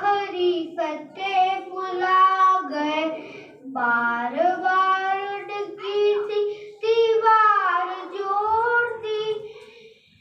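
A boy singing a devotional song solo, holding wavering notes that glide between pitches, in phrases broken by short pauses for breath.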